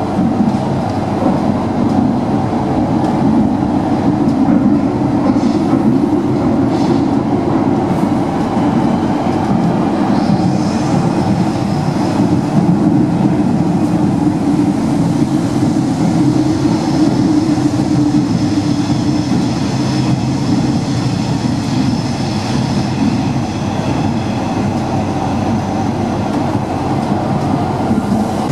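Rome Metro Line C train running at speed through a tunnel, heard from inside the front car: a steady rumble of wheels on rail. From about ten seconds in, faint high whining tones join the rumble.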